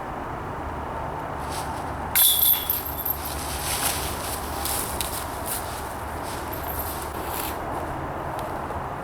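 A disc hitting the chains of a disc golf basket: a sudden metallic clash about two seconds in, with the chains jingling and rattling as they settle over the next few seconds.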